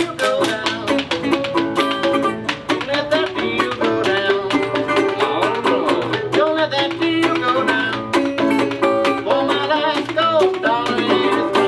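A string band plays: banjo and resonator guitar picking over washboard percussion scraped and tapped in a steady rhythm. The music stops at the very end.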